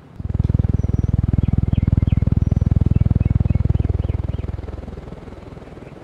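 Air from a running ceiling fan's blades buffeting the microphone: a loud, rapid low pulsing that starts suddenly and fades away after about four seconds.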